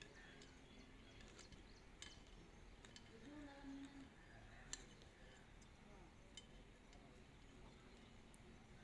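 Near silence with a few faint, sharp clicks and clinks, about five spread over the stretch, as small parts are handled.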